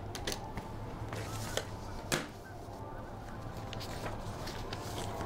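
A steady low hum with scattered short clicks and knocks. The sharpest knock comes about two seconds in.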